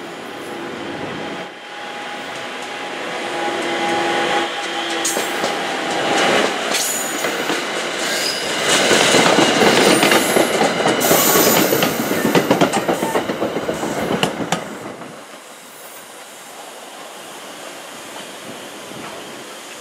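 NJ Transit commuter train passing close by over a street grade crossing. It grows louder as it approaches, then the wheels click rapidly over the rails and crossing for several seconds at its loudest while the Comet V coaches go by. The sound falls away about fifteen seconds in.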